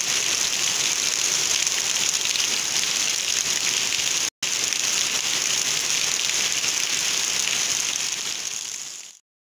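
Heavy rain pouring down, a dense steady hiss. It cuts out for a split second about four seconds in and fades away near the end.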